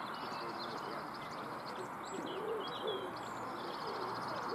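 A pigeon cooing in soft repeated arched coos, mostly in the second half, with small birds chirping high above it over a steady outdoor hiss.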